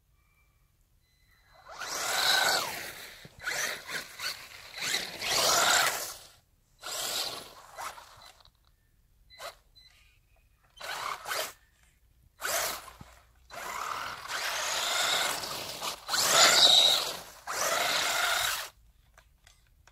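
Battery-powered RC buggy's electric motor and drivetrain whirring in short throttle bursts, its knobby tyres spinning and spraying snow on an icy road.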